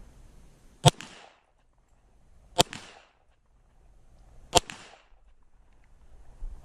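Three pistol shots from a Glock, spaced about two seconds apart, each trailing off in a short echo.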